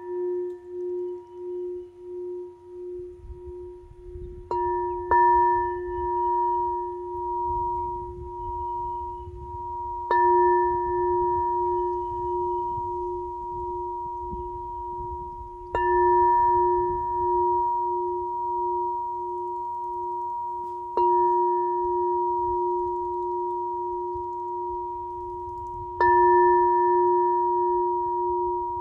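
Frosted pink crystal singing bowl struck with a suede-covered mallet, about every five seconds, six strikes in all, with the first two close together. Each strike renews one steady, ringing tone with higher overtones that wavers as it sustains between strikes.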